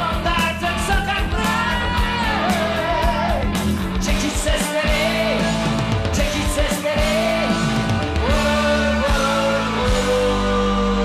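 A song playing: a voice singing a melody over a backing band with steady bass and regular beats.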